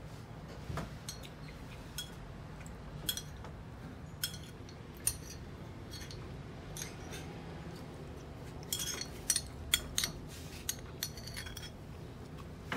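Metal spoon clinking and scraping against a ceramic plate and bowl in scattered light taps, with a quicker run of clinks near the end, over a faint steady low hum.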